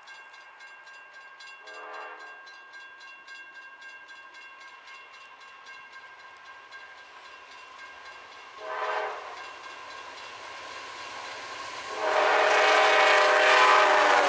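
Freight locomotive's air horn blowing as the train approaches: a short blast, another short blast about seven seconds later, then a long, loud blast as the locomotives come up alongside. The rumble of the train grows under the last blast, and a fast, regular ringing sounds in the background through the first part.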